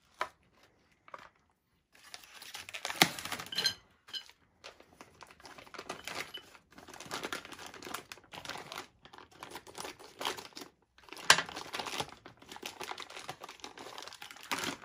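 Plastic packaging bags crinkling and rustling as they are handled and cut open, in irregular stretches with two sharp clicks, about three seconds in and again about eleven seconds in.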